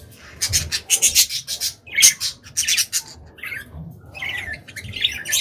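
Budgies squawking in a run of short, harsh, raspy calls, loudest in the first three seconds, then fading into softer chatter.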